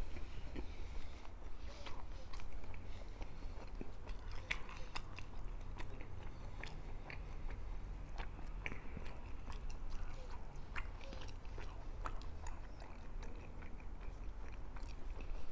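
Close-miked chewing and biting of a chilaquiles torta, a bolillo roll filled with chilaquiles, with irregular crunchy clicks and crackles of the chips and bread. A low hum lies under it.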